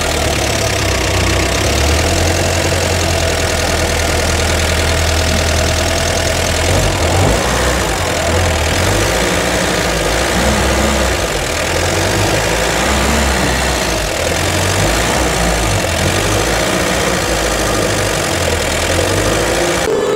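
UAZ-452 'Bukhanka' van's engine running at low revs as the van creeps forward onto a drive-on lift, a steady low hum.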